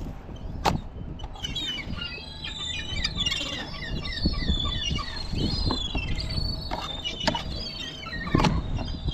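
Many birds calling in quick, high chirps and squeals, thickest through the middle, over a steady low rumble. A few sharp knocks come from fish and a knife being handled on the cleaning table, the loudest near the end.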